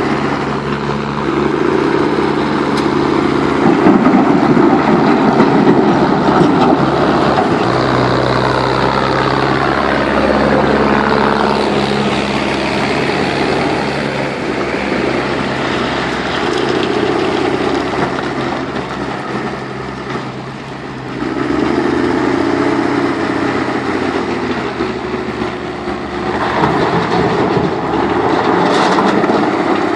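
Heavy diesel construction machinery, a backhoe loader and dump truck, running continuously, the engine pitch rising and falling as the machines work under load, with a brief easing off a little after the middle.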